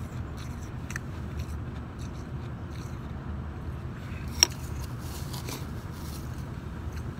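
Shaved ice crunching as it is chewed, in faint scattered crackles over a steady low hum. Once, about four seconds in, a sharp ringing clink of the metal spoon against the glass bowl.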